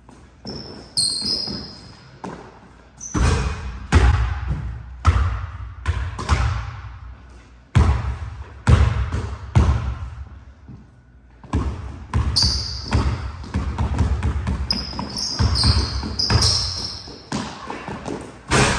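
Basketball dribbled in irregular bounces on a hardwood court, with sneakers squeaking on the floor in short high chirps during cuts.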